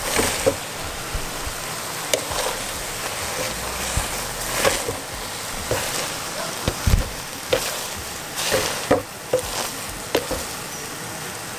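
Boiled potatoes being mashed in a pot with a plastic potato masher: irregular soft knocks and squishes as the masher presses down against the pot, over a steady hiss.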